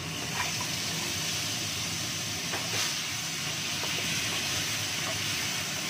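Ground spice paste of shallot, garlic and chilli sizzling in hot oil in a wok: a steady frying hiss that starts sharply as the paste goes in. A few light taps of the wooden spatula stirring it.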